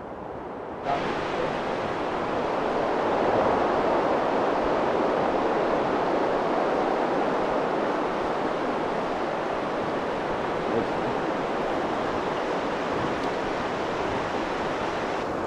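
Mountain stream water rushing steadily, heard close up from the water's surface. A quieter, muffled rush gives way abruptly to the full, even sound about a second in.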